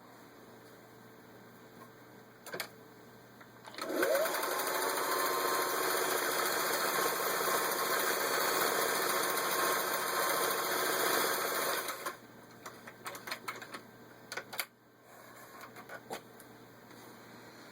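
Vintage 1961 Singer 503A sewing machine stitching out its Banner fashion-cam pattern. The motor spins up with a rising whine about four seconds in, runs steadily for about eight seconds, then stops. A few light clicks come before and after the run.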